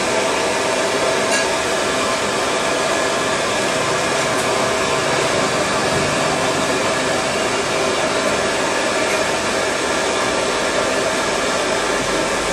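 Steady, loud rushing noise with a faint hum, like a blower or fan running continuously.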